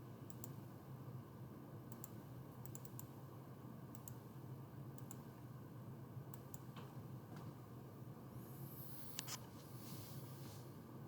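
Computer mouse clicks, often in quick pairs, every second or so over a faint steady hum. About nine seconds in there is a brief scratchy rustle and one louder click.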